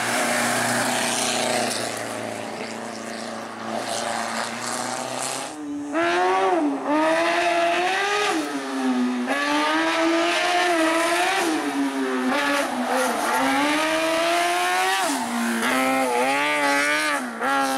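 A race car's engine pulls hard up through the gears on a hill climb, its pitch climbing and then dropping sharply at each shift or lift, again and again. Before that, for the first five seconds or so, there is a steadier, even engine noise.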